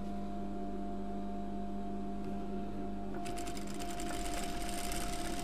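Sewing machine running steadily as it stitches a skirt's side seam: a continuous motor hum with a rapid needle chatter, which turns brighter about three seconds in.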